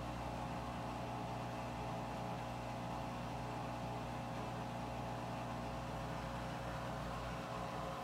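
Washing machine running steadily at low drum speed, a constant motor hum, while it redistributes and rebalances the clothes before ramping up to its high-speed spin.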